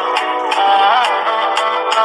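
Background music with a steady beat, about two percussion hits a second, under a bending melodic line.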